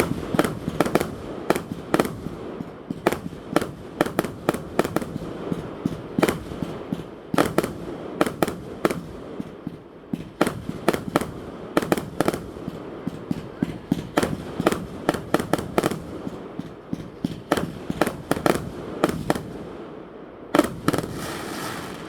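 Aerial fireworks going off in a rapid, irregular string of sharp bangs and cracks, several a second. A short lull comes near the end, followed by one last dense cluster.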